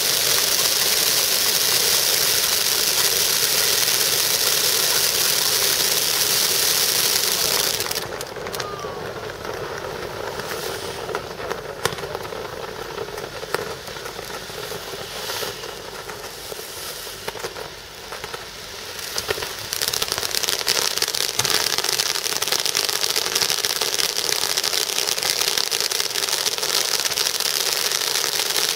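Pyrotechnic ground fountains (gerbs) hissing loudly as they spray sparks. About eight seconds in the hiss falls away to quieter scattered crackling with a few sharp pops. About twenty seconds in a fresh row of fountains starts hissing again.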